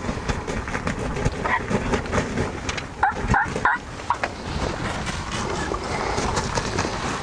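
Three quick turkey yelps about three seconds in, with fainter calls before them, over a steady background rustle.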